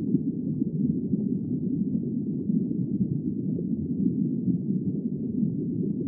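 Steady, muffled low rumble of deep-sea underwater ambience, with nothing high-pitched in it.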